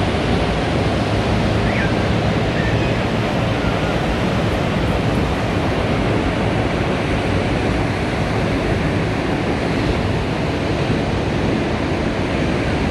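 Ocean surf rushing steadily on a beach, with wind on the microphone.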